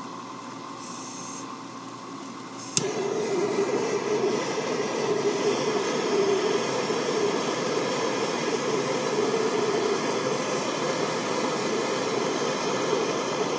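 Drill press motor running steadily, then about three seconds in a small gas torch lights with a sharp click and burns with a steady, louder hiss. The torch is slowly bringing a spinning steel reamer blank up to temperature before it is hardened.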